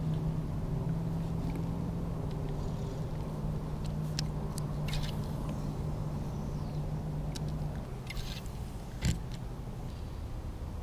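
A steady low motor hum that stops about eight seconds in, with a few light clicks and one sharper knock near the end.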